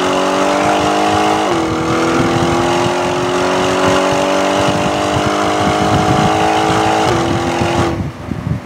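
Audi S6 twin-turbo V8 under full throttle, its pitch climbing steadily through the gears with two quick upshifts, about a second and a half in and about seven seconds in. Near the end the throttle is lifted and the engine note drops away, leaving wind noise.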